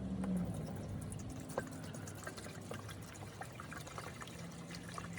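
Liquid cleaner-sanitizer being poured into a small plastic reservoir tank, a faint trickle with small scattered ticks and splashes.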